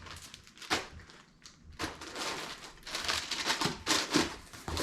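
Rustling and light knocks of packaging and items being handled by hand, a run of short irregular crinkles and taps.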